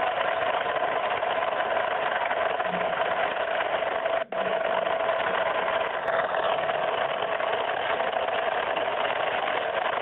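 Boat engine running steadily under a constant rush of wind and churning water. It cuts out for a split second about four seconds in.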